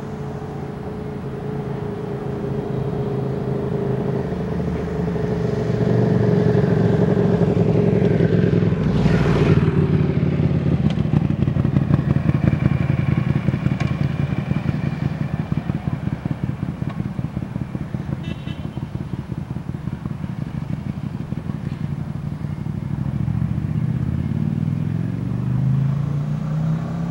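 Road traffic passing close by: a vehicle goes past about nine seconds in, then a motorcycle engine runs with a fast, even pulsing, and another vehicle speeds up near the end.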